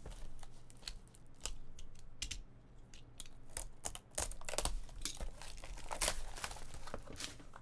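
Sealed cardboard trading-card box being opened, a plastic tool prying at its seal, then clear plastic wrapping crinkling and tearing: a run of small crackles and clicks that gets busier about halfway through.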